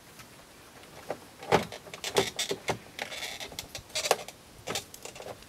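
A string of clicks, knocks and rattles as things are handled in a car's front cabin while a small ashtray is taken out, with a brief rustle around the middle.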